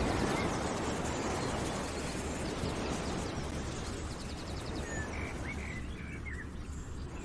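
Outdoor ambience: a steady rushing noise with birds chirping over it, a quick trill about four seconds in and a cluster of short chirps a second later.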